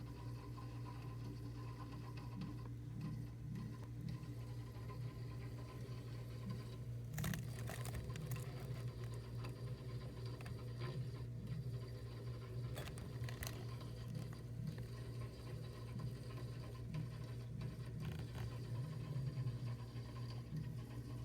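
Frigidaire deep freezer running: a steady low compressor hum with an uneven, irregular extra noise over it, the strange noise apart from the compressor. A few sharp clicks come about a third of the way in and again a little past halfway.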